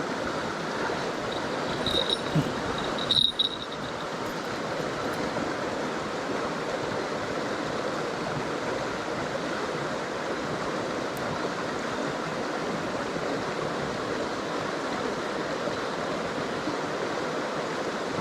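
Mountain stream rushing steadily over rocks. Two brief high-pitched chirps or clicks cut in about two and three seconds in.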